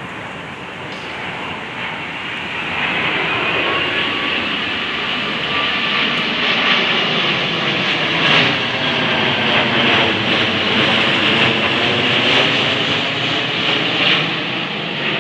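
Twin-engine jet airliner on landing approach with its gear down, passing low overhead: the jet engine noise and rushing air build over the first few seconds and then stay loud as it goes over.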